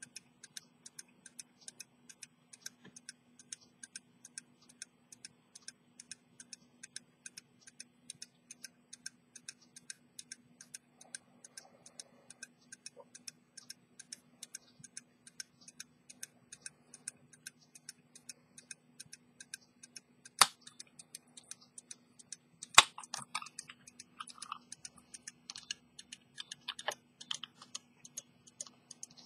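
1750 English fusee pocket watch ticking steadily, about five beats a second. Past the middle come two sharp clicks, then scattered small knocks and rubbing as the watch is picked up and its silver case is handled.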